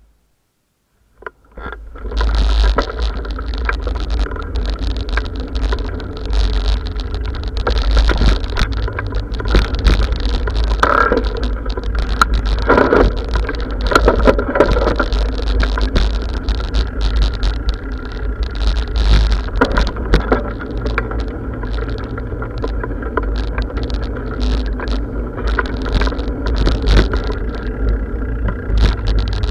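Wind buffeting the microphone of a camera riding on a moving bicycle, with a heavy low rumble and frequent small rattles and knocks from the bike over the path. It starts suddenly about a second in.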